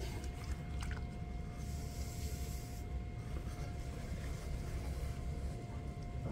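Electric potter's wheel running with a steady low hum and a thin whine, while wet clay squishes under the hands as it is centered. A short hiss comes about two seconds in.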